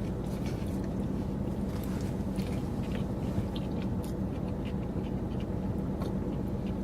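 A man chewing food, with small wet mouth clicks, over a steady low background hum.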